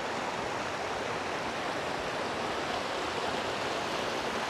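Shallow river water rushing steadily over stones and small rapids.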